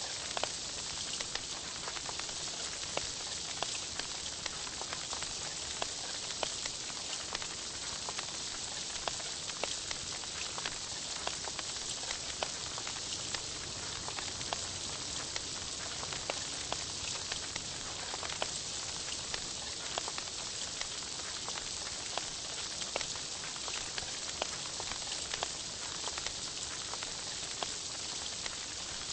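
Meat sizzling on a Korean barbecue grill: a steady crackling hiss full of small pops.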